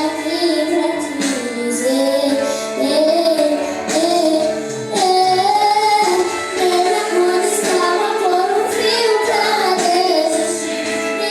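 Worship music: high voices singing a melody over steady, sustained instrumental accompaniment.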